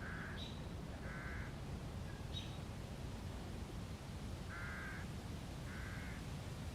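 A crow cawing: four short harsh caws in two pairs, one pair near the start and one about two-thirds through. A couple of brief high chirps and a steady low outdoor hum sit underneath.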